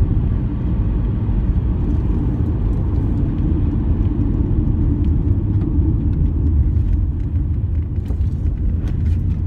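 Inside a moving car: a steady low rumble of engine and tyre road noise while driving.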